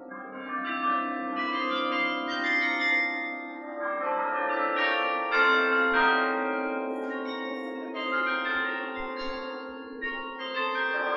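A carillon playing a melody: its bells are struck in quick succession, and the notes ring on and overlap each other.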